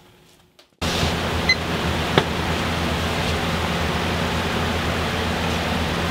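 Steady rushing noise with a low hum from a running powder coating oven, starting abruptly just under a second in. There is a faint short beep and a click about two seconds in.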